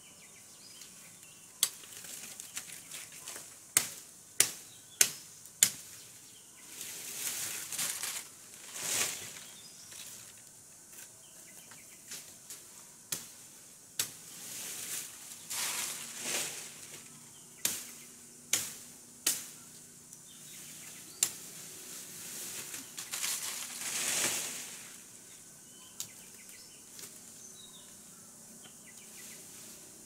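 Sharp knocks of a machete chopping wood, several in quick succession, alternating with the swishing rustle of leafy branches being dragged and laid in place.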